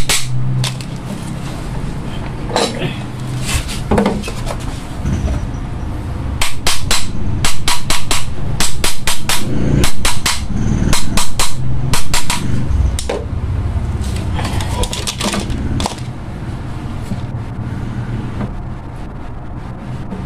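Repeated light tapping on the metal end cover of an air-cooler fan motor, knocked all around its rim so the cover seats flush onto the motor body after the shaft bearings were cleaned and oiled. The taps come in quick clusters, busiest in the middle of the stretch.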